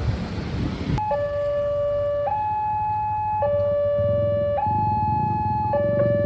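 Railway level-crossing warning siren sounding an electronic two-tone alarm, a higher and a lower tone alternating about once a second, starting about a second in. A low rumble of traffic runs underneath.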